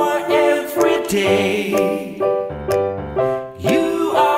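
Background music: a tune of short notes changing several times a second.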